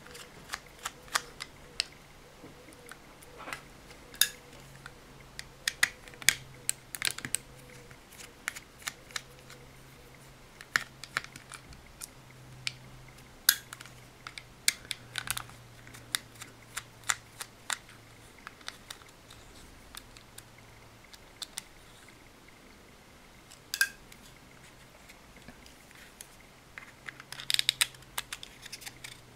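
Scattered small clicks and ticks of a small screwdriver and fingers working on a plastic cruise-control switch housing while its small screws are undone, with a quick run of clicks near the end. A faint steady low hum sits underneath.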